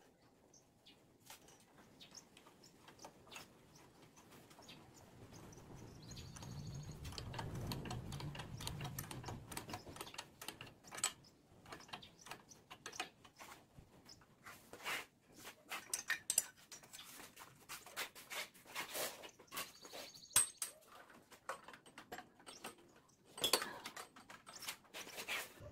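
Small metal clicks and taps from handling a cable fitting and tightening it with a small wrench on a handlebar brake master cylinder. A low hum swells and fades about six to ten seconds in.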